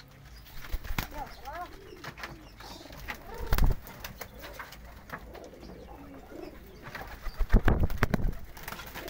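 Domestic pigeons cooing, with a short thump about a third of the way in and a quick run of wing flaps and claps close by near the end.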